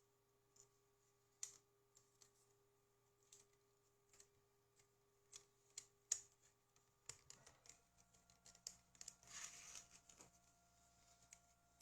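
Faint, scattered small clicks of a plastic video cassette and its parts being handled, with a brief rustle about nine seconds in.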